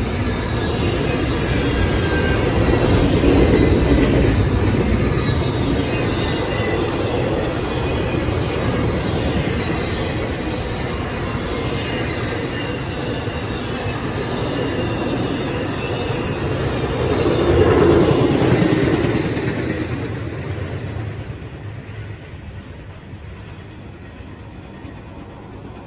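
Intermodal freight train cars rolling past: a steady rumble and clatter of steel wheels on the rails with faint high wheel squeals, swelling twice. From about twenty seconds in the sound fades away as the end of the train passes.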